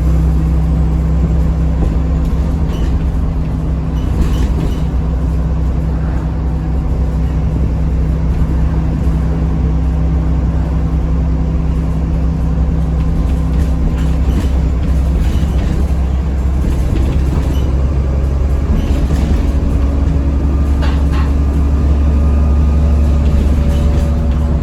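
Interior sound of an ADL Enviro400 double-decker bus on a Dennis Trident 2 chassis, its diesel engine running with a steady low drone. A thin, steady turbo whine sits above the drone, and there are a few brief rattles from the body.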